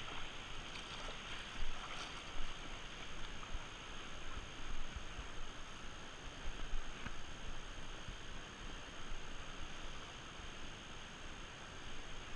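Steady rush of flowing river water, with irregular low bumps of wind on the microphone.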